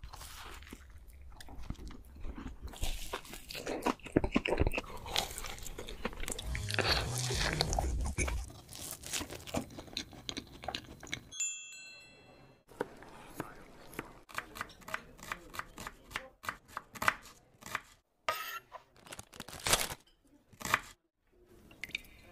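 Close-miked eating: biting, crunching and chewing into chocolate-coated donuts. About halfway through, a wind chime rings briefly. After it comes a run of sharp clicks and crunches with short quiet gaps between them.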